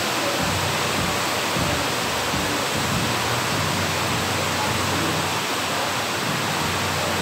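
Heavy rain pouring down in a steady hiss.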